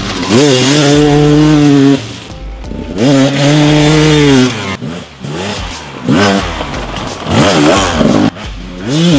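Gas Gas XC300's two-stroke single-cylinder engine revving hard under throttle. It climbs and holds in long pulls, with sudden drops where the throttle closes about two seconds in and again halfway through, and quicker on-off blips later on.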